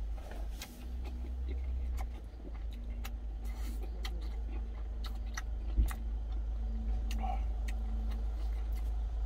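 Chewing and small mouth clicks from a man eating food, over a steady low hum, with a single thump about six seconds in.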